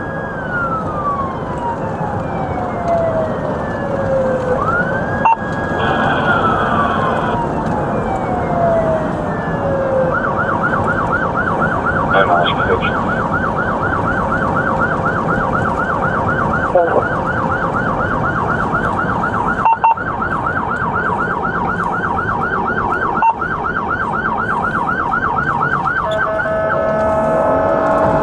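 Police siren sounding: two long wail sweeps that rise quickly and fall slowly, then about ten seconds in it switches to the fast yelp, changing again near the end. Road noise runs underneath.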